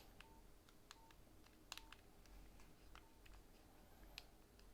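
Faint clicks of a Nokia 6151's keypad buttons being pressed one after another, several followed by a short, high key-tone beep from the phone.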